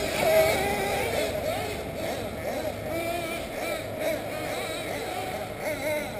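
Several 1/8-scale nitro RC buggy engines running at high revs, their whine sliding up and down in pitch as the cars speed up and slow for corners.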